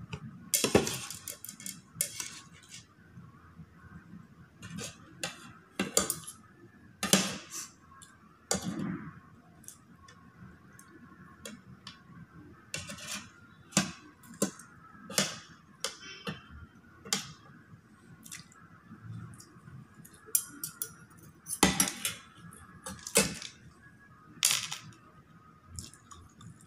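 Metal fork and spoon clinking and scraping on ceramic plates while scooping up the last of a meal. The taps and scrapes are irregular, with a few louder clinks.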